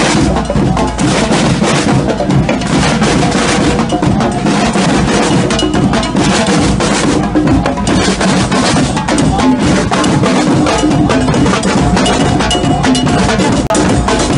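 Marching band's snare drums and bass drums playing a loud, continuous rhythm.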